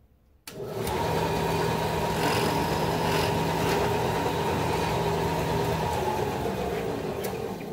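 Floor-standing drill press switched on about half a second in and running steadily, drilling through plywood. Its motor hum stops around six seconds in and the sound winds down near the end.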